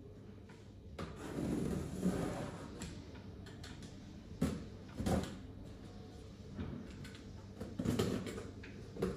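Corrugated cardboard box being opened by hand: a scraping rustle about a second in as the tape on top is cut, then a few sharp cardboard knocks and rustles as the flaps are pulled open.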